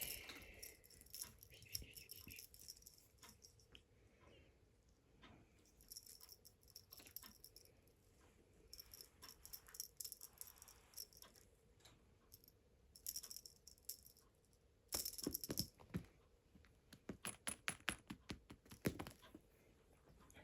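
Faint, scattered rattling and jingling of a cat's toy being batted about, with louder flurries about fifteen seconds in and again a couple of seconds later.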